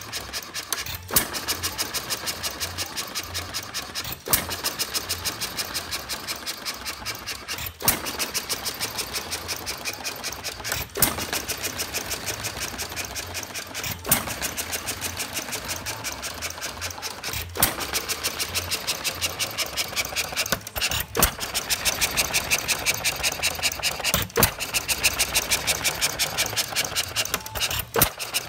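Ajax sideshaft hit-and-miss engine running on its governor. It fires with a sharp bang about every three to three and a half seconds, nine times in all, and coasts between firings with a quick, even clicking.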